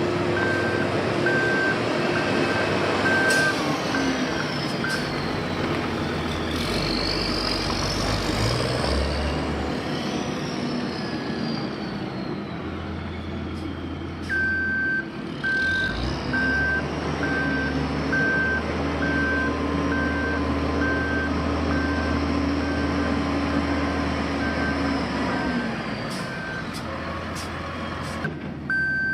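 Heavy road-construction machinery engines running steadily, with a reversing alarm beeping in an even rhythm for the first few seconds and again from about halfway through to near the end.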